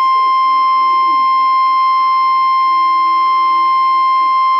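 NOAA Weather Radio's 1050 Hz warning alarm tone: one loud, steady, high-pitched tone held without a break. It is the attention signal that precedes a tornado warning broadcast.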